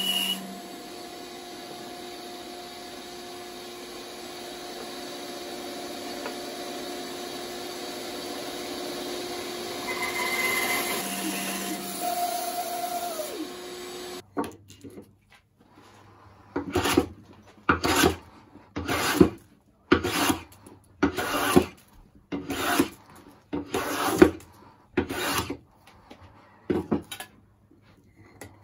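A bandsaw runs steadily while cutting a hardwood neck blank, then its motor is switched off and winds down with a falling hum. After that come about a dozen short hand-plane strokes along the wooden blank, roughly one a second.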